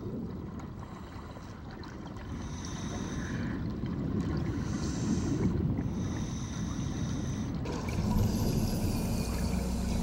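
Muffled underwater wash of water, a low rumbling haze that slowly grows louder; a low steady hum joins near the end.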